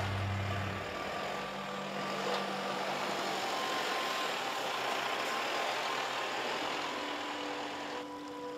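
Mercedes-Benz Unimog truck crawling through snow: its diesel engine's low drone is strong for about the first second, then sinks under a steady hiss of the big tyres churning through the snow.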